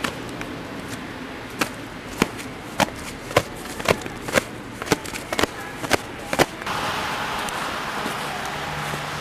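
Footsteps on snow-covered ground, sharp steps at about two a second, stopping about six and a half seconds in. A steady hiss follows.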